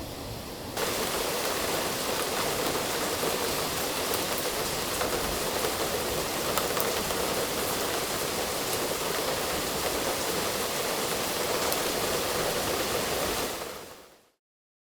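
Heavy downpour pouring down as a steady, even hiss. It gets louder about a second in and fades out near the end.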